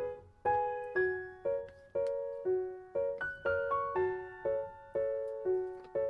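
Background piano music: gentle notes struck about twice a second, each ringing out and fading.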